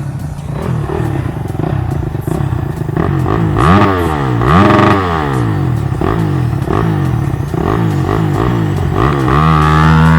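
Honda CRF250's single-cylinder four-stroke engine on its stock exhaust, revved up and down over and over in quick swells, then held at a steady higher pitch near the end.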